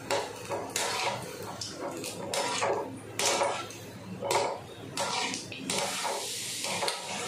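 Gulab jamun balls deep-frying in hot oil in a metal kadai: the oil sizzling while a wire-mesh strainer spoon is drawn through it in repeated strokes, scraping and knocking against the pan as it turns the balls so they fry evenly on all sides.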